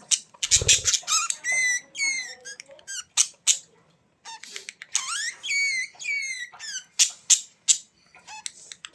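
A bird giving a rapid series of high, squeaky calls, many bending up and down in pitch, with short clicks between them. A low thump comes about half a second in.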